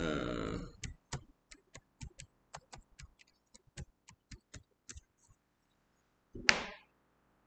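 Computer keyboard keys tapped one at a time, well over a dozen irregular clicks in about four seconds as a password is typed. About six and a half seconds in comes a single louder knock.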